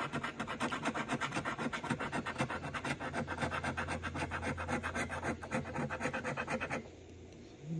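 A coin scraping the coating off a paper scratch-off lottery ticket in rapid back-and-forth strokes, stopping abruptly near the end.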